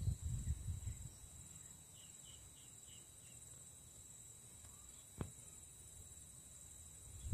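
Steady high-pitched trilling of insects in the background. A low rumble fades out in the first second, and there is a single sharp click about five seconds in.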